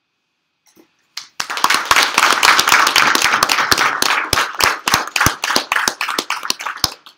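Audience applauding: dense clapping starts about a second in, holds steady, then thins out to a few scattered claps near the end.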